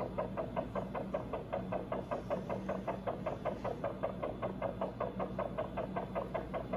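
Heart monitor sounding the anaesthetized hamster's heartbeat as a fast, even pulse of about five beats a second, over a steady low hum.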